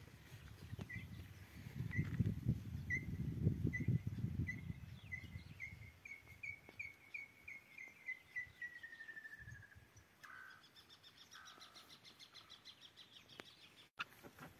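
An inhambu (tinamou) singing: a series of whistled notes at one pitch, starting about a second apart, then speeding up and sliding down in pitch into a fast run that ends about ten seconds in. A low wind rumble on the microphone sits under the first few seconds.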